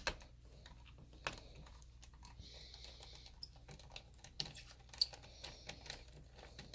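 Faint, scattered clicks and taps of a Phillips screwdriver working a screw in a laptop's plastic back panel, with small knocks of handling against the case.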